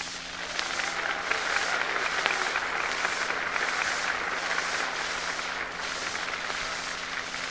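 Large open-air crowd applauding, a dense steady clapping that swells in about half a second in and eases slightly near the end, with a steady low hum underneath.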